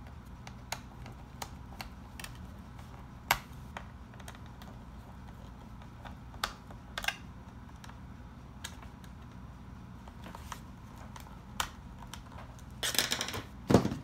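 Scattered light clicks and taps of a small screwdriver on the plastic case as the memory door on the underside of an HP Pavilion dv7 laptop is fastened back down. Near the end comes a louder rattling scrape and a knock.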